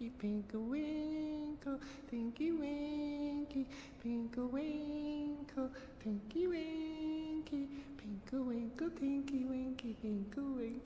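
High, childlike voices humming and singing a simple wordless tune without accompaniment, in held notes that step up and down in short phrases, with light clicks scattered through.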